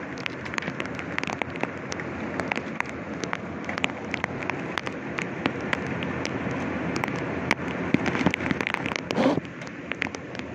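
Rain falling, with many sharp drops ticking irregularly on plastic rain covers and metal grating over a steady hiss.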